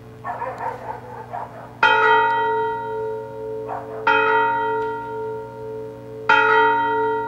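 Fire-service memorial bell struck three times about two seconds apart, each strike ringing on with a long, steady tone: one round of the 'last alarm' for fallen firefighters, three rings three times each. Short rough noisy sounds come just before the first and second strikes.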